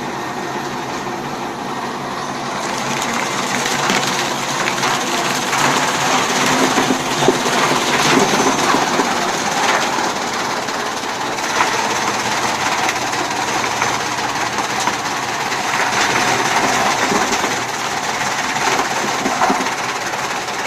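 Chaff cutter running: a steady machine hum under a dense clatter that grows louder about three seconds in, with irregular clicks through it.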